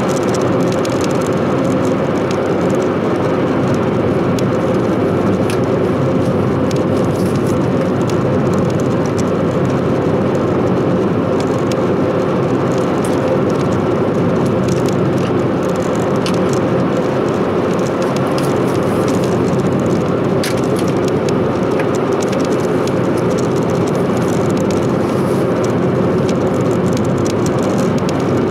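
Steady interior driving noise of a Chevrolet Spark cruising at highway speed, unchanging throughout.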